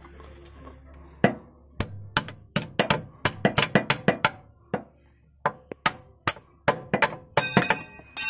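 Hammer driving a chisel against the cut steel outer sleeve of a differential bush: a long series of sharp metal blows, irregular and often in quick bunches, driving the sleeve inward to free it from its bore. The last few blows ring.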